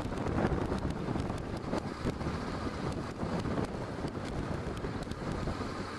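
Wind rushing and buffeting over a helmet-mounted camera microphone on a Honda NC700X motorcycle cruising at about 30 mph, with the bike's engine and road noise under it.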